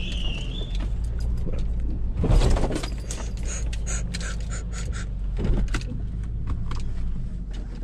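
Car engine running with road noise, heard from inside the cabin while driving slowly and turning. There is a brief louder rumble about two seconds in, then scattered light metallic clicks and jingles.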